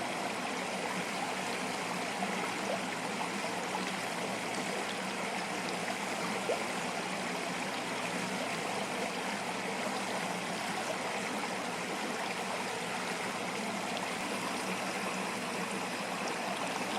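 A stream running steadily, an even rushing of flowing water with no clear frog calls standing out above it.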